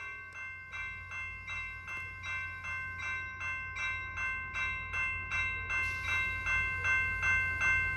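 Railroad crossing warning bell ringing in an even rhythm, about two and a half strokes a second, gradually getting louder. A low rumble swells underneath near the end.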